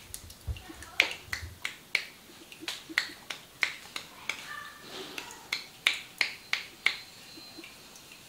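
Sharp, crisp snaps from a masseuse's hands working at the scalp and hair during a head massage: about fourteen, at roughly two a second, stopping a little before the end.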